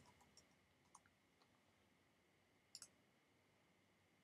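Faint computer keystrokes in the first second or so, then a single sharp double click near three seconds in, with near silence between them.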